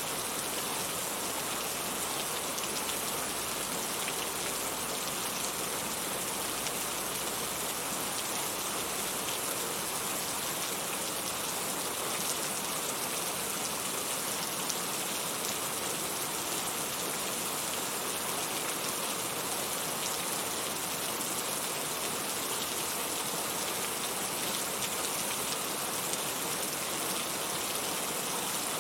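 Heavy rain falling steadily, an even hiss of drops on surfaces with small scattered drop ticks.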